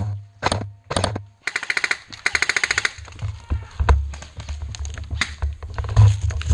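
Airsoft gun firing: three single shots about half a second apart, then a rapid full-auto burst lasting about a second and a half, followed by scattered shots. Heavy low thumps come in the second half, the loudest near the end.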